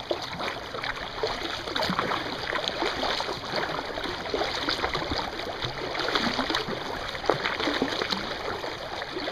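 Kayak paddle strokes: the blades dipping and pulling through the water on alternate sides, with continual splashing and dripping.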